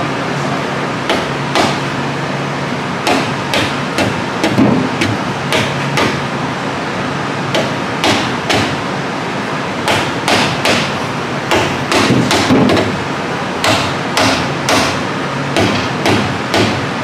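Orange soft-faced mallet tapping the ring-gear carrier of a GM 10-bolt rear axle, seating it in the housing. About thirty sharp taps come in quick groups of two to four, with short pauses between the groups.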